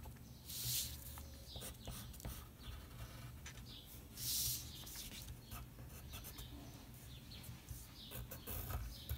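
Faint pencil strokes scratching on paper, with the sheet rustling as it is slid and turned on the desk, loudest about a second in and again around four seconds in.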